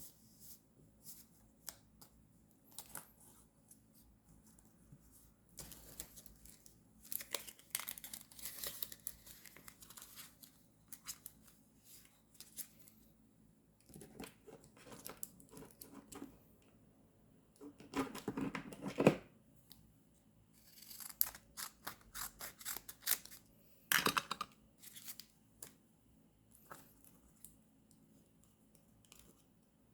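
Scissors snipping paper in several runs of quick cuts, with paper being torn or peeled and handled between them; the loudest burst comes just before two-thirds of the way through.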